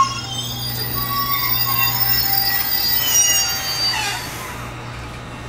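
Electric train's wheels squealing against the rails, several high tones at once over a steady low hum. The squeal dies away about four seconds in.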